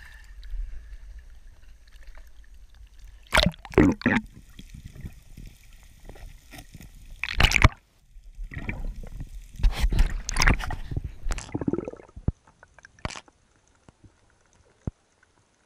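Seawater sloshing and splashing around the camera at the surface, in several loud gushes, then much quieter underwater sound with a few faint clicks after about 12 seconds.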